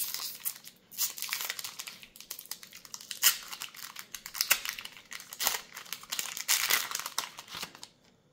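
Foil Magic: The Gathering collector booster pack wrapper crinkling and tearing as it is opened by hand, in irregular crackles that stop near the end.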